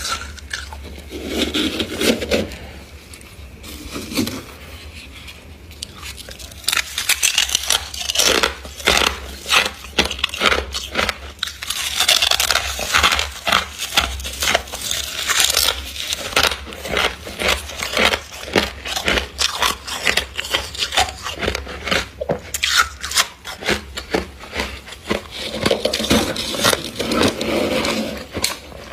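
Frost-coated chunks of humidifier ice being bitten and crunched, a dense run of crisp crunches from several seconds in.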